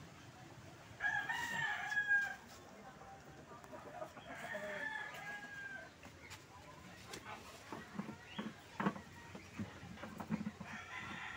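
Rooster crowing three times: about a second in, again around four seconds, and once more near the end. Several short knocks sound between the second and third crows.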